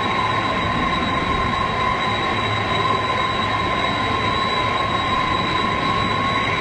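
Boeing 747's jet engines running at taxi power: a steady high whine over a constant rush.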